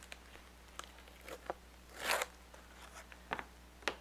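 Tape being peeled off the packaging of a set of paintbrushes: a few small clicks and crackles, with one short rip about two seconds in.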